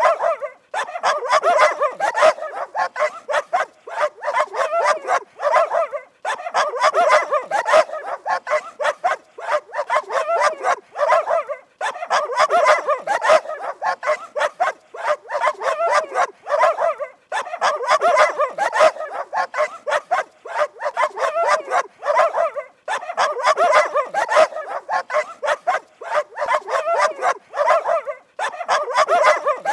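Dog barking in rapid runs of sharp barks, broken by short pauses every five or six seconds.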